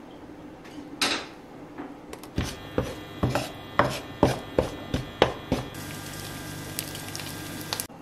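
Wooden spatula stirring sliced garlic and chili flakes in oil in a frying pan: a short sizzle about a second in as the oil goes in, then a run of knocks and scrapes of wood on the pan, two or three a second, then a steadier sizzle that stops abruptly.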